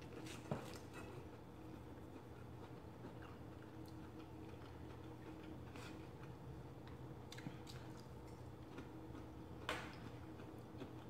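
Quiet eating: a few faint clicks of a metal fork against a plate, the loudest about half a second in and another near the end, over a low steady room hum.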